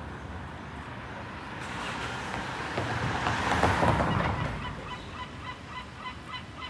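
A vehicle passes close by, its noise swelling to a peak about halfway through and then fading. As it fades, a run of short high-pitched notes repeats about three times a second.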